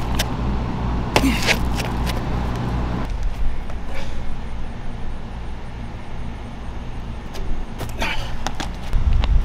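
Steady low rumble of outdoor traffic, with a few short scuffs and thumps of sneakers jumping onto and landing on concrete, about a second in, near four seconds and near eight seconds.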